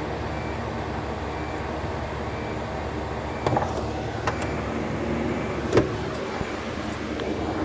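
Samsung side-by-side refrigerator running in forced-freeze test mode: a steady low hum, with three sharp clicks or knocks in the second half.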